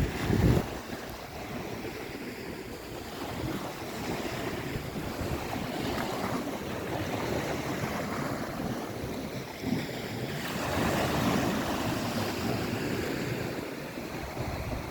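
Ocean surf washing onto the shore, swelling and easing, with wind buffeting the microphone. A loud low rumble of wind comes right at the start, and the surf builds to its loudest about ten seconds in.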